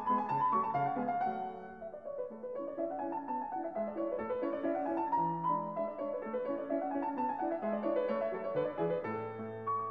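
Background piano music, runs of notes rising and falling in flowing arches.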